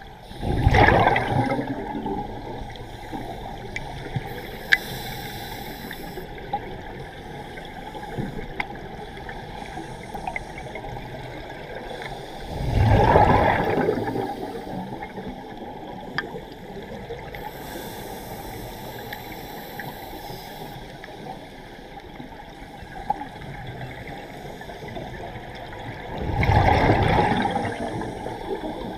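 Underwater sound of a scuba diver exhaling through a regulator: three bursts of bubbles about thirteen seconds apart, each lasting about two seconds, over a steady underwater hiss with scattered faint clicks.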